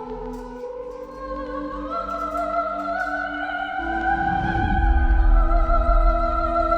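Dramatic orchestral music with held sung voices, building louder, with a deep low rumble entering about four seconds in.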